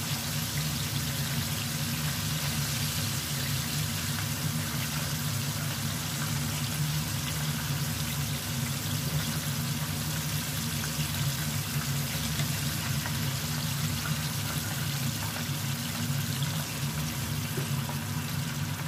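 Flour-and-egg-coated chicken drumsticks frying in hot oil: a steady sizzle with fine crackling, over a steady low hum.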